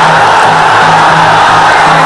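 Traditional Kun Khmer fight music: a shrill, continuous reed pipe playing over a steady pulsing drum beat.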